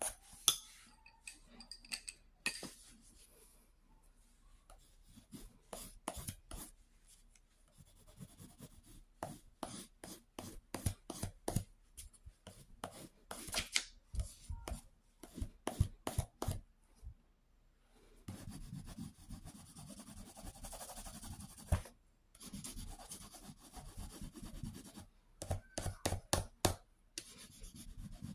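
Graphite pencil scratching on sketchbook paper while shading hair: many quick short strokes, then a steady stretch of continuous rubbing shading about two-thirds of the way through, then quick strokes again near the end.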